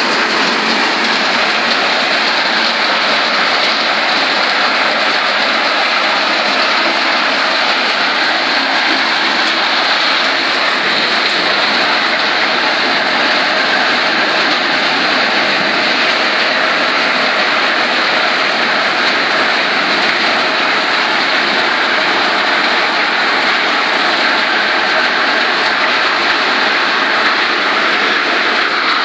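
Multi-crop thresher running steadily while threshing maize: a loud, even rushing noise of the machine and grain, with no breaks or changes.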